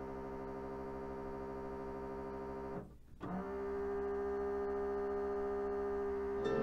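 Mitsubishi HS-U760 Super VHS VCR running its mechanism with an annoying, steady whirring. The whirring cuts out briefly about three seconds in, then starts again a little louder after a click. It is typical of a missing or broken belt.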